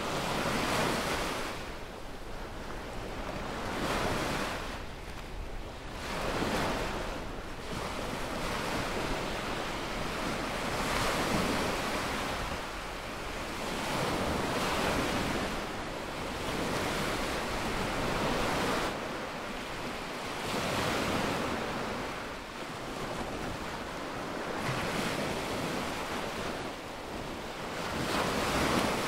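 Small waves breaking and washing up a sandy lagoon beach, the surf swelling and fading every few seconds. Wind rumbles on the microphone underneath.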